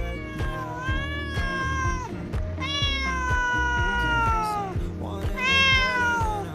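A cat meowing three times, long drawn-out meows, the second and third sliding down in pitch, over background music with a steady beat.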